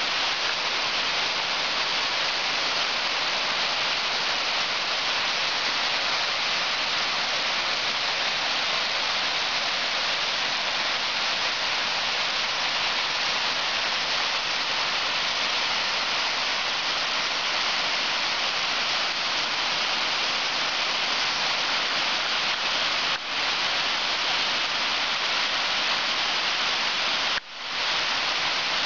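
Steady rush of white water as a creek pours over a waterfall and down rocky cascades, an even hiss, with two short dips in level near the end.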